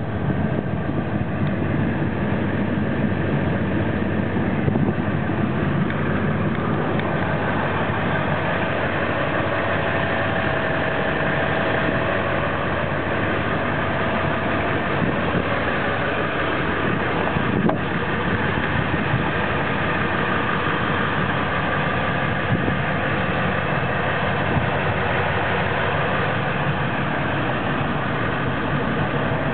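A Ford 7.3 Powerstroke V8 turbo diesel idling steadily, heard from inside the truck's cab, with one brief click about two-thirds of the way through.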